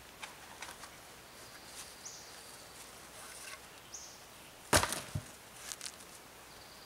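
A wooden stake is thrown down and lands about five seconds in with one sharp wooden knock, then a smaller knock and a couple of light taps as it bounces and settles.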